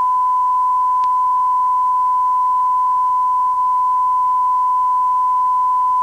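Electronic test tone: one steady, unbroken beep held at a single pitch.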